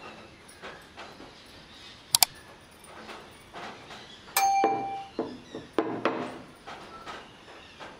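A sharp double click, then a bell ding: the sound effects of a subscribe-button animation. After the ding comes a run of knocks and rattles from a small ceramic jar of pickled baby mangoes being shaken in the hands.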